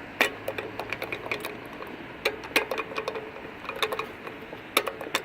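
Accessible pedestrian signal push-button station (Prisma Teknik type) clicking and ticking while the crosswalk waits for the walk phase, with sharp clicks at uneven intervals over steady street background.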